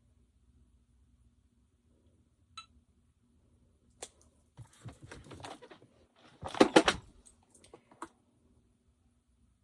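Handling noises: a light metallic clink, then rustling and clattering with a louder burst of clatter about six and a half seconds in, and a last click near the end.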